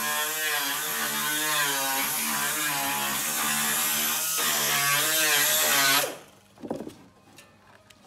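An electric power tool running steadily with a high whistle, its pitch wavering up and down as it is worked. It cuts off suddenly about six seconds in, followed by a few light knocks and a click near the end.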